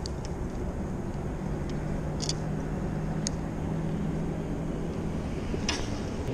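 A distant engine's steady low hum over outdoor rumble, with a few short, high clicks or chirps.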